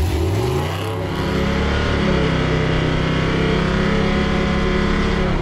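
1964 Chevy C10 pickup's engine rising in revs over the first second or so as the truck pulls away, then running at a steady speed.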